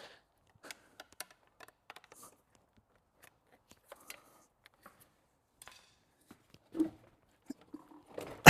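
Scattered light clicks and scrapes of hands and a tool working the clip of a radiator coolant hose connection, with a sharper knock near the end.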